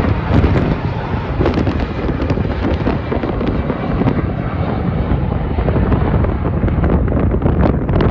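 Airbus A350-900 jet engines (Rolls-Royce Trent XWB) at high thrust on departure: a loud, steady, rumbling roar full of crackle.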